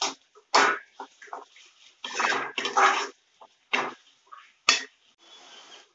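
Metal spatula scraping and stirring a thick spice mixture in an aluminium kadhai, in about five irregular rasping strokes.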